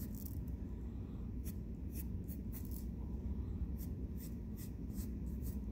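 Graphite pencil scratching on paper in short strokes, sketching a curve: about a dozen brief scratches over a low steady hum.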